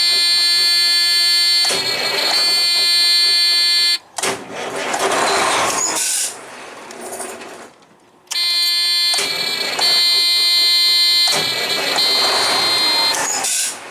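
Truck's warning buzzer sounding a steady, high, piercing tone that drops out twice for a few seconds, mixed with short bursts of the starter cranking the engine. The starter is being tested for a hard start blamed on bad ground connections.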